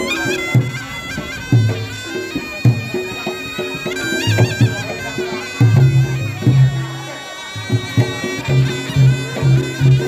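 Reog Ponorogo gamelan music: a slompret, a reedy double-reed shawm, plays a wavering, ornamented melody over steady held tones and low drum strokes. About six seconds in the drum strokes quicken into an even pulse.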